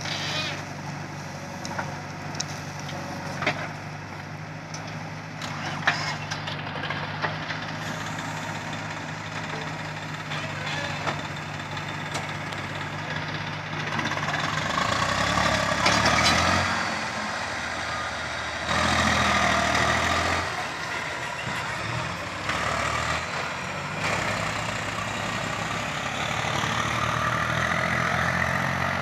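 Diesel engines of a JCB 3DX backhoe loader and a farm tractor running, with a few sharp clanks in the first half as the bucket dumps soil into the trolley. About halfway through, the engine sound rises and gets louder as the loaded tractor pulls away and the backhoe works on.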